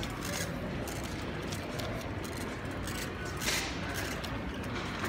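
Pushchair being wheeled through a shop: a steady low rumble of the wheels on the hard floor with light clicks. There is a brief rustle about three and a half seconds in.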